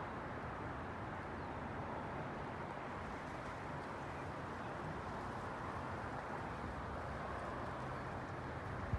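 Strong thunderstorm wind blowing steadily, a continuous rushing noise.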